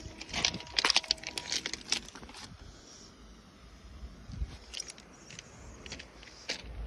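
Footsteps crunching on railway track ballast stones, a quick run of steps in the first two seconds or so, then a few scattered crunches and clicks later on.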